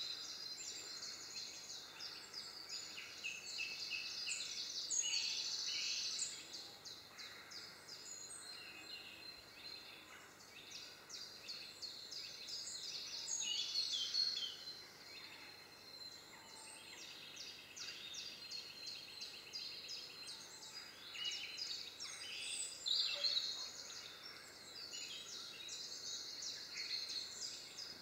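European greenfinch singing: continuous rapid twittering trills and chattering notes.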